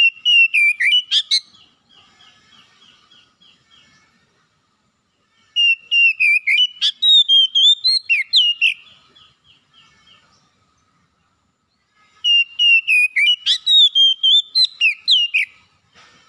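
Oriental magpie-robin singing: three loud phrases of clear whistled notes that slide up and down, with softer quick repeated chattering notes in the gaps between them.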